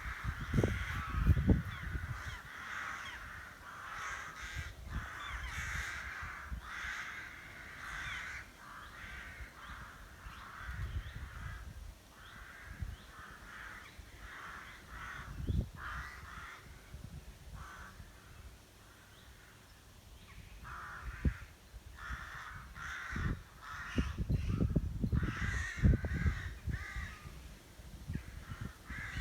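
A large rookery of rooks cawing continuously, many birds calling over one another at once. A low rumbling noise comes and goes underneath, loudest near the start and again about 24 to 27 seconds in.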